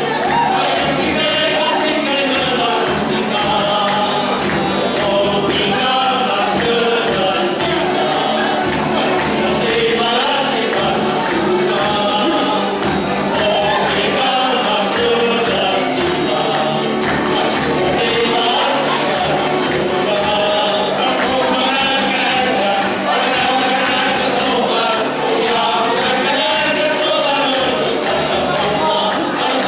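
A Foliões folk group singing a Holy Spirit folia in chorus, men's and women's voices together. They are accompanied by strummed mandolin-type strings, an accordion and a large hand-beaten frame drum keeping a steady beat.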